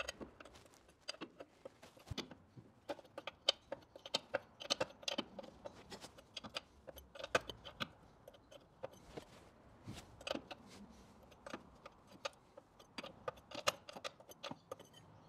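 Light metallic clicks and clinks, irregular and a few a second, from a spanner working the sump drain plug of an old engine as the plug is undone.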